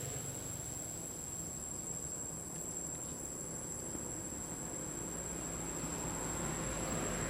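Steady, high-pitched insect chorus from the surrounding forest, over a low background rumble.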